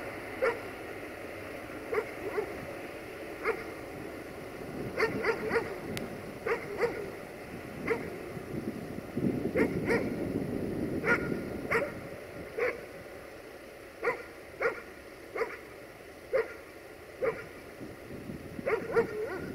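A dog barking over and over in short barks, often in quick pairs or threes, over a low background rumble.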